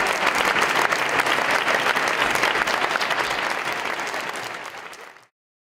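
Audience applause: a dense, even patter of many hands clapping. It fades from about four seconds in and cuts off to silence near the end.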